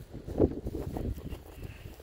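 Footsteps on dry grass and ground litter, one heavier step about half a second in, then lighter scuffs that fade.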